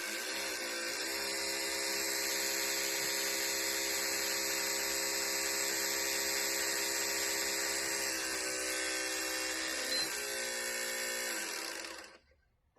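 PS4 Slim disc drive running with a steady mechanical whine, its pitch shifting twice near the end before it cuts off. The noise is caused by a dented aluminium shield rubbing against the drive's moving parts.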